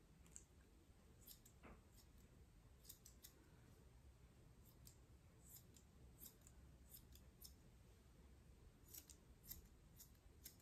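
Steel grooming shears snipping a bichon frise's curly coat: faint, irregular snips, some in quick pairs and clusters, as stray sticking-out tufts are trimmed off.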